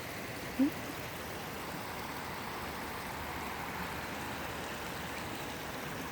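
Creek water running over rocks in small cascades, a steady rushing, with one brief low sound about half a second in.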